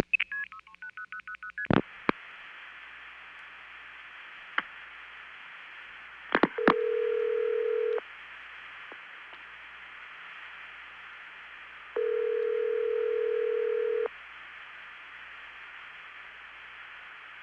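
Long-distance telephone call setup: a quick run of short multifrequency tone pulses as the digits are sent over the trunk, a click, then an open line with steady hiss and a few clicks. Two rings of low-pitched ringback tone follow, the second longer than the first and about four seconds after it.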